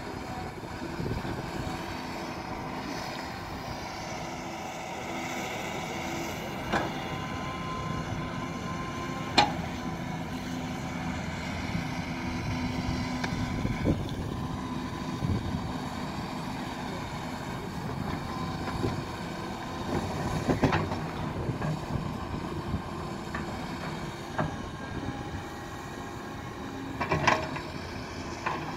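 Caterpillar tracked excavator's diesel engine running steadily, with a steady whine over it and a few sharp metal knocks, the loudest about nine seconds in.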